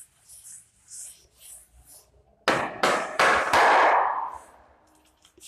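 A blackboard duster wiped across a chalkboard in quick hissing strokes, about two a second. About halfway through come three or four loud knocks, then about a second of loud harsh noise that fades away.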